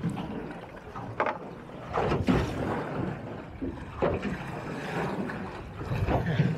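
Choppy sea slapping and sloshing against the hull of a small boat rocking at anchor, in irregular surges every second or two, with wind buffeting the microphone.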